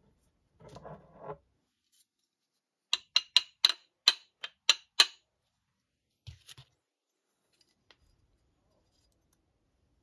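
A hammer tapping the rotor shaft of a Ford alternator to drive the rotor out of its front housing: eight sharp metallic clinks, about three a second, because the rotor will not simply pull out. A brief scraping rattle comes before them, and a dull knock follows.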